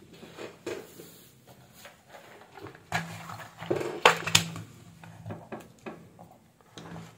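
A clear plastic compartment box full of electronic components being handled and its lid opened: a few irregular clicks and knocks, loudest about three and four seconds in.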